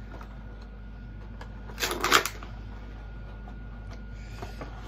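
Funko Pop box packaging being handled: a short burst of rustling and crinkling about two seconds in, with a few light clicks and a soft rustle near the end.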